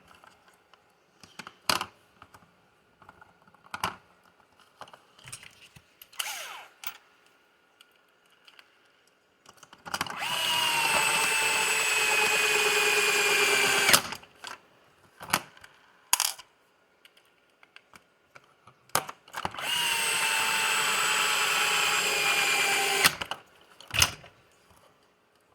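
Small electric power driver running twice, about four seconds and then about three, its whine dropping slightly in pitch as the screws into the suspension block tighten. Light clicks and taps of small parts and tools are heard in between.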